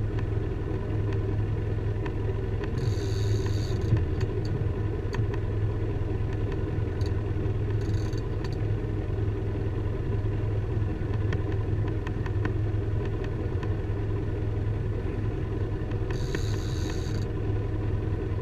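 A boat's engine running steadily at low speed, a deep, even hum. Three times a brief high-pitched buzz cuts in over it, about 3, 8 and 16 seconds in.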